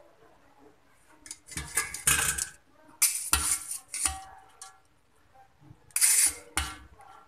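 Stainless steel colander and serving spoon clattering and scraping against a steel cooking pot as boiled rice is spooned and tipped in, in three short bursts of metal clatter.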